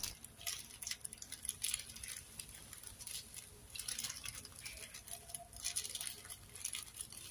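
White rice-wrapping paper rustling and crinkling faintly in short, irregular rustles as it is folded by hand around a portion of fried rice.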